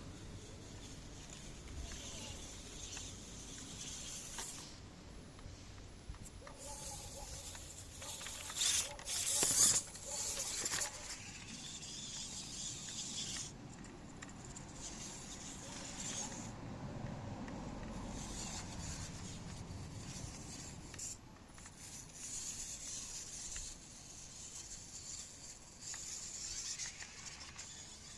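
Small 3D-printed RC car's electric motor and plastic all-wheel-drive gears whirring in spurts as it drives, with clicks and rattles; the loudest stretch comes about a third of the way in.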